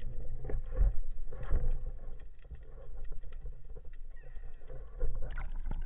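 Sea water sloshing and splashing around a waterproof camera housing at the surface, with irregular low thuds and knocks of handling. The sound is muffled as if heard through the sealed housing.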